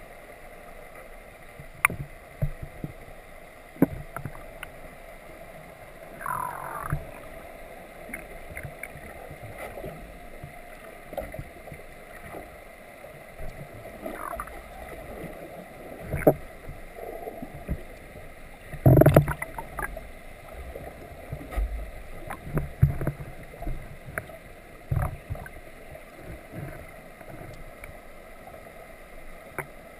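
Steady background noise aboard a sportfishing boat at sea, broken by scattered knocks and thumps on deck. There is a brief squeak about six seconds in, and the loudest thump comes about nineteen seconds in.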